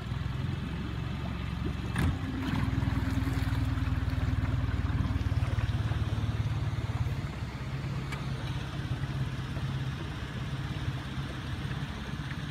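Yamaha 20 hp four-stroke outboard running at low speed, tilted to its shallow-water drive setting. A single knock about two seconds in, after which the engine note rises and holds for several seconds, then eases back to a steady low run.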